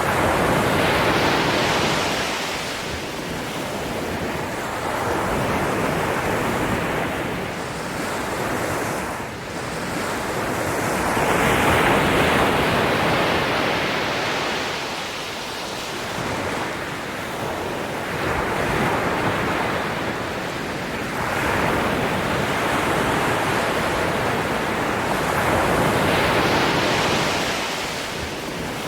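Ocean waves breaking and washing up the shore, the surf swelling and falling back in slow surges about every five to seven seconds.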